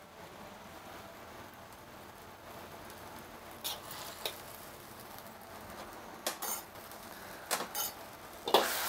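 Mushroom sauce simmering in a wok with a low sizzle, while a metal ladle clinks against the wok and seasoning containers several times. The sizzle grows louder near the end as the sauce is stirred.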